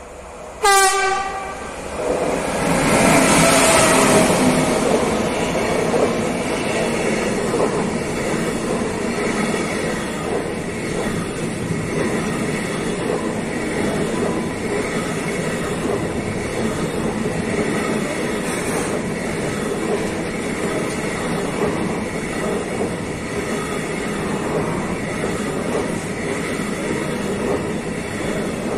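A train gives one short horn blast about half a second in, then passes close by, its running noise on the rails loud and steady for the rest of the time.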